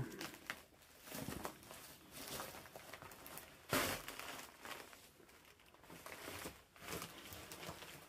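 Faint rustling and crinkling of someone moving about and handling things in a cluttered room, with one sharper knock about four seconds in.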